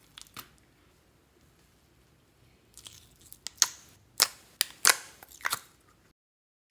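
Soft pink slime squeezed out of a plastic tub by hand: a run of sharp, wet pops and crackles as trapped air bursts, loudest over the second half. It cuts off suddenly near the end.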